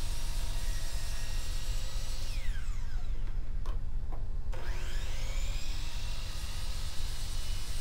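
DeWalt miter saw (chop saw) motor running with its high whine, switched off about two and a half seconds in and winding down with a falling whine. Two light knocks follow as the MDF blank is shifted along the stop block. The saw is restarted about four and a half seconds in, the whine rising to speed as the blade comes down for another shallow, not-through cut in the MDF.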